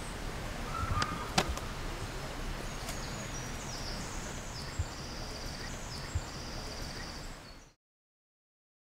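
Woodland ambience: a steady outdoor hiss with a sharp click about one and a half seconds in and high chirping from about three seconds in, then the sound cuts off to silence shortly before the end.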